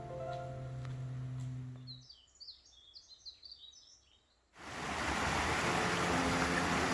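Background music ends about two seconds in, followed by a brief run of bird chirps; then, about halfway, the loud steady rush of a mountain valley stream starts suddenly.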